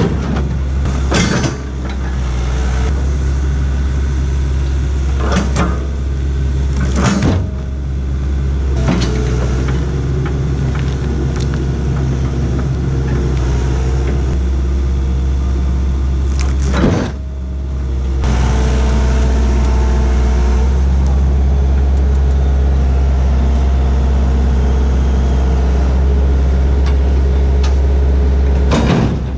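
Hitachi tracked excavator's diesel engine running steadily, with about five sharp knocks as heavy logs are set and shoved onto a steel trailer and into a truck by the bucket and thumb.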